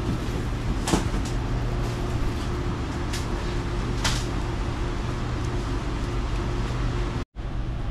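Shop room tone: a steady low machine hum with a few sharp knocks. It cuts out for a moment near the end.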